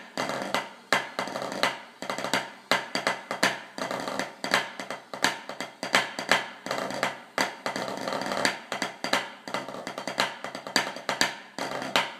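Drumsticks playing a fast practice pattern on a drum: quick runs of sharp strokes and rolls with loud accented strikes a little more often than once a second, stopping near the end.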